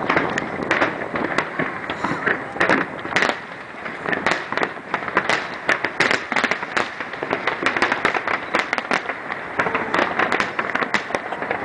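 Fireworks display going off: a dense barrage of sharp bangs and crackles, several a second, with a brief lull about four seconds in.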